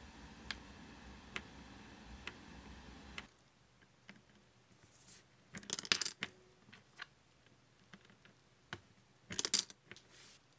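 Coins dropped into a cast iron Santa mechanical bank, landing with a metallic clinking rattle twice: once about halfway through and again near the end, with a few lighter clicks between. Before that, faint single clicks about once a second come from a screwdriver turning a screw in the bank's chimney.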